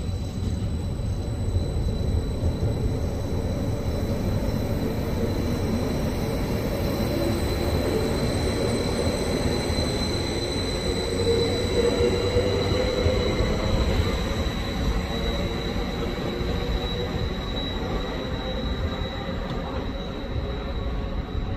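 A train running along the rails with a steady rumble and a thin, high-pitched wheel squeal, and a tone that slides up in pitch around the middle.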